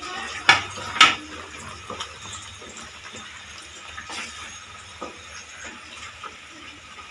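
Wooden spatula stirring a thin sauce in a steel kadai, knocking against the pan twice about half a second and a second in, then softer scrapes and occasional taps as the liquid is swirled.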